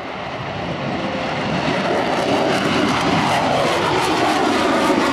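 Jet noise from the twin AL-41F1S turbofans of a Sukhoi Su-35 flying low past with its landing gear down, growing steadily louder as it approaches.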